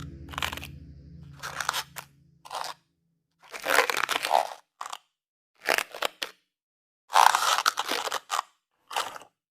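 Fan packaging being handled: short, crunchy rustles of plastic or foam wrapping in irregular bursts with pauses between them, the loudest near the middle and about three-quarters of the way through.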